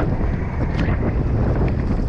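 Wind buffeting the microphone on an open boat deck: a steady, loud low rumble, with a couple of faint clicks.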